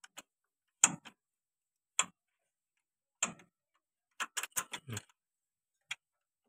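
Sharp clicks and knocks of steel parts being handled and fitted in an open tractor gearbox's gear-shift mechanism (shift rails and selector parts), scattered through, with a quick run of several about four to five seconds in.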